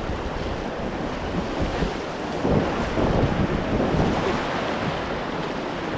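Rushing whitewater of the Ganges rapids around a raft, with wind buffeting the microphone; it swells a little louder about halfway through.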